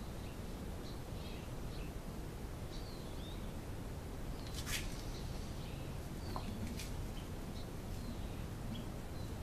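Birds chirping in short, scattered calls over a steady low outdoor rumble, with a brief click a little under five seconds in and another near seven seconds.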